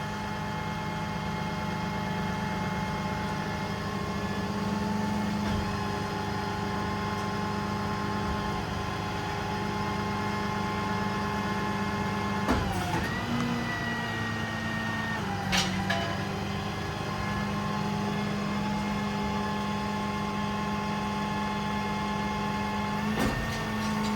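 Summit 6620 service-truck crane's hydraulic system running as the boom telescopes out, a steady mechanical hum and whine. About halfway through the pitch shifts for a few seconds, with a click at the start and at the end of the change.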